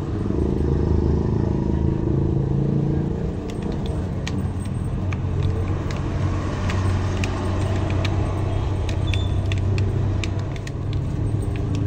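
Steady low rumble of motor traffic, with scattered sharp clicks from a Shashibo magnetic shape-shifting cube's panels snapping together as it is folded by hand.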